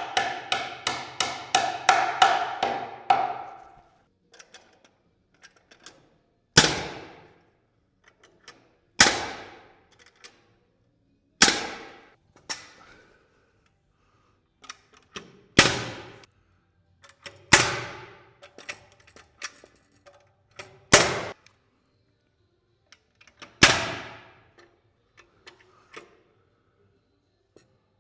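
Pneumatic framing nailer driving nails into wood framing: a quick run of about a dozen sharp shots in the first three seconds, then seven single shots a few seconds apart, each with a short ringing tail.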